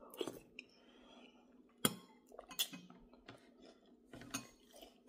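Quiet eating: a few sharp clicks of a metal spoon, about two seconds in and again shortly after, with soft chewing and slurping of soup.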